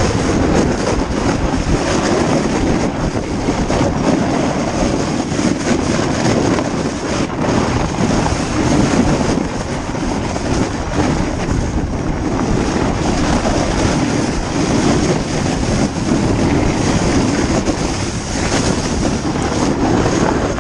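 Toboggan towed fast over packed snow behind a Kawasaki Brute Force ATV: a steady loud noise of the sled scraping and hissing over the snow and wind on the camera, with the ATV's engine running ahead.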